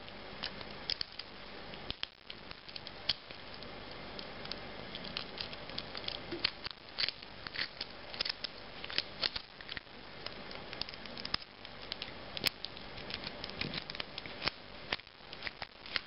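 Small screwdriver backing the screws out of a keychain tuner's plastic case: light, irregular clicks and scratches with handling noise.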